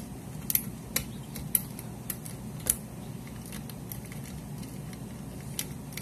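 Metal lock pick raking across the pins of a lock clamped in a steel bench vise: irregular sharp metallic clicks, a few a second, carried through the vise, over a faint low hum.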